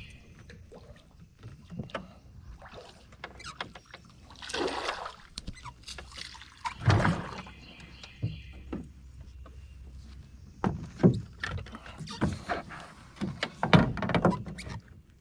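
Fishing from a small boat: repeated knocks and rattles of the rod and gear against the hull, with two longer splashy swells as a hooked shellcracker (redear sunfish) is fought at the surface. The loudest sharp knocks come in the last few seconds as the fish is lifted aboard.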